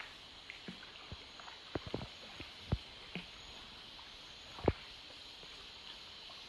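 Canoe paddle strokes: irregular soft knocks and small splashes of the paddle against the hull and water, with two louder hollow knocks partway through. Under them is a steady high-pitched hum of rainforest insects.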